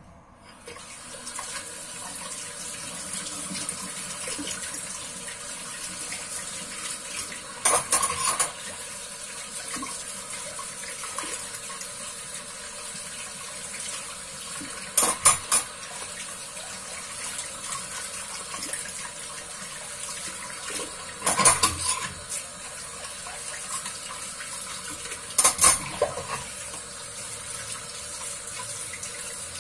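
Kitchen tap turned on and running steadily into a stainless steel sink while dishes are washed under it. Four times, spoons and bowls clatter briefly against each other and the sink.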